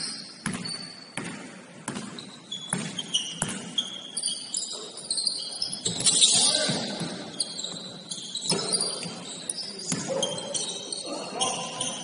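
Basketball dribbled on a gym floor, about one bounce every 0.7 seconds for the first few seconds, with short high sneaker squeaks throughout and a loud rush of noise about six seconds in. Voices call out in the echoing hall.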